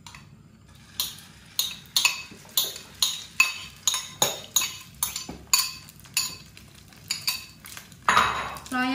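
Metal spoon knocking and scraping against a ceramic bowl, repeated sharp clinks about three a second, as corn batter is scraped out into a frying pan. A short hiss near the end.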